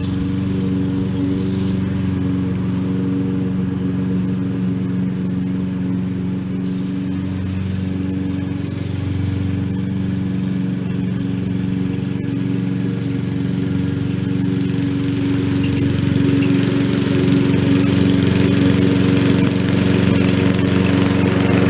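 Gas lawn mower engine running steadily under load while cutting grass, growing a little louder and hissier in the last few seconds.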